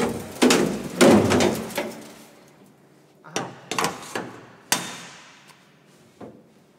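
Steel sheet-metal cover panels in a combine's grain tank clanking and banging as they are set into place. A rattling clatter fills the first two seconds, then a handful of sharp metal knocks follow, the last one ringing briefly.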